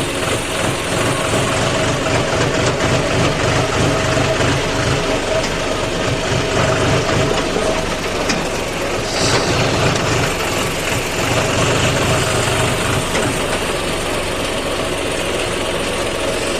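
John Deere tractor's diesel engine running steadily while driving along with a load, a constant engine drone.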